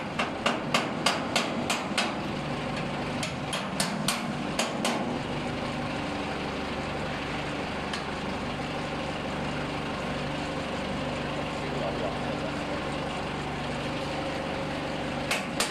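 Sharp metal-on-metal taps, about three a second and unevenly spaced, through the first five seconds and twice more near the end, from a tool striking the steel bracket and hardware of a batching-machine hopper. Under them an engine runs steadily.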